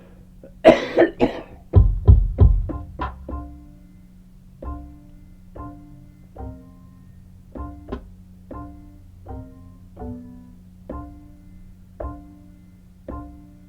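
Sampled instrument sounds being auditioned one at a time: a quick cluster of loud percussive hits in the first couple of seconds, then single pizzicato-like plucked string notes about once a second at changing pitches, each dying away quickly. A steady low hum runs underneath.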